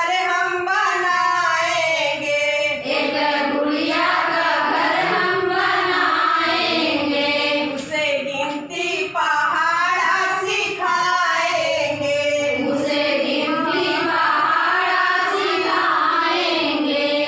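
A group of women singing a song together.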